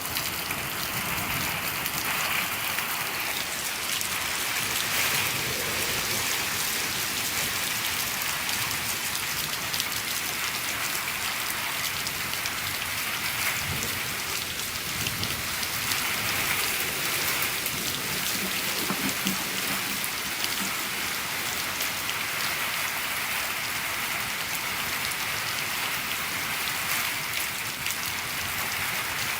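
Steady rain falling on a shed roof, a dense even patter.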